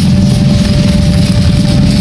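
An engine idling steadily, loud, with a thin steady hum above its low drone.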